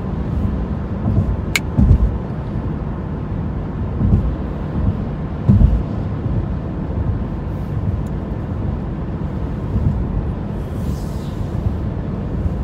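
Car interior road noise while driving: a steady low rumble of tyres and engine heard from inside the cabin, with three dull thumps, about two, four and five and a half seconds in, as the car goes over bumps in the road.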